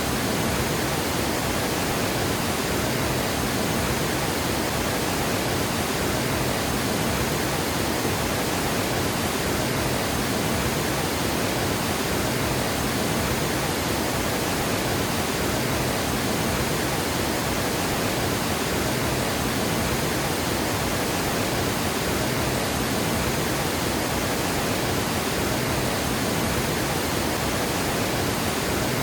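Water pouring over a dam spillway: a steady, unbroken rush of falling water.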